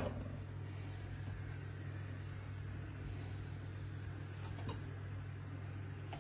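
Quiet kitchen room tone: a steady low hum, with a faint tap on the wooden cutting board about four and a half seconds in.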